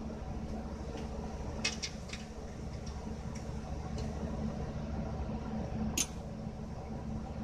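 A few sharp metal clicks and clinks of sockets being handled in a ratchet set case, a cluster about two seconds in and one more near the end, over a steady low hum.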